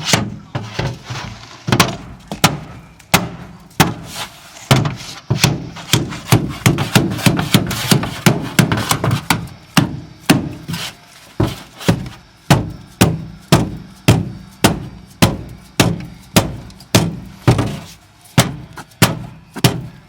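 Hammer blows on sheet metal, a steady run of sharp strikes about three every two seconds, coming thicker and faster in the middle stretch.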